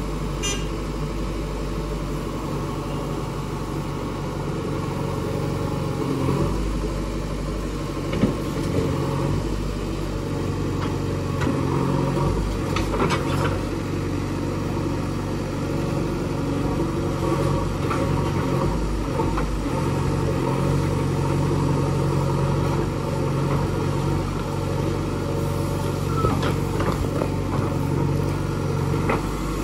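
JCB 3DX backhoe loader's diesel engine running under digging load, its revs swelling and easing as the backhoe hydraulics work. A few short sharp knocks come from the bucket biting into soil and stones.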